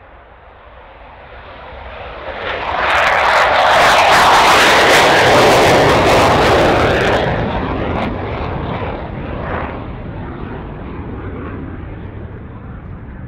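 Saab JAS-39C Gripen's single Volvo RM12 turbofan at takeoff power as the jet lifts off and passes low and close. The jet noise builds, is loudest with a crackling edge from about three seconds in, then fades as the aircraft climbs away.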